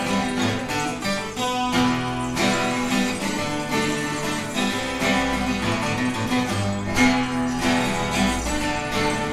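Twelve-string acoustic guitar played live in a Spanish style, strummed and picked with notes and chords changing steadily.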